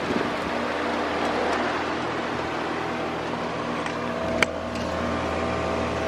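Goodman two-stage heat pump outdoor unit running in heat mode: a steady rush of air from the fan over an even mechanical hum. A single sharp click comes about four seconds in.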